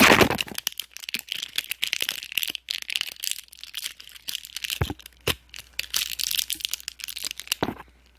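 Plastic packaging being crinkled and crumpled by hand: a dense run of fast crackles, with a loud crunch at the start and a few sharper cracks later on.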